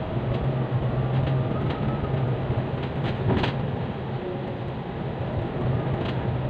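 Steady low drone of a double-decker bus in motion, heard inside the cabin, with scattered rattles and clicks from the bodywork, the loudest about three and a half seconds in.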